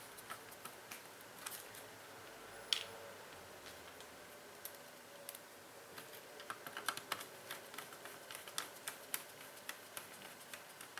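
Faint, irregular small clicks and taps of hands handling the internal parts and cables of an opened Acer ES1-512 laptop during reassembly, with one sharper ringing click about three seconds in and quicker clicking from about six seconds on.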